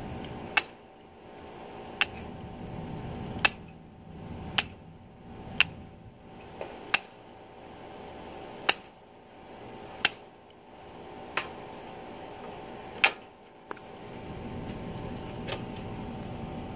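Tin snips cutting strands of chicken wire, a sharp metallic snip about every second or so, a dozen cuts in all, over a steady low hum.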